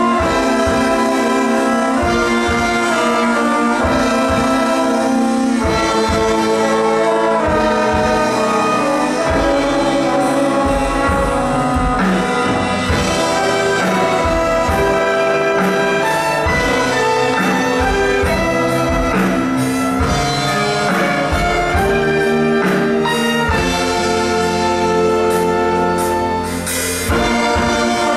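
Live church orchestra playing an instrumental passage, with brass to the fore over strings.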